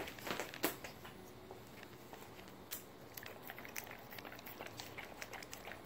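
Young American Bully licking and mouthing carrot baby food off a plastic toy spoon: a run of quick small clicks and smacks of tongue and mouth, with a few louder knocks in the first second.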